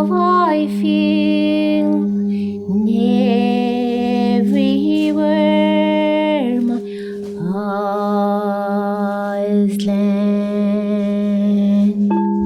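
Wordless singing in long held notes, about five of them, sliding from one pitch to the next over a steady low drone.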